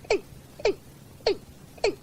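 Watercock calling in a steady series of short notes that drop in pitch, about one every 0.6 seconds, four in all. It is a recorded flock call of the kind played to lure watercocks.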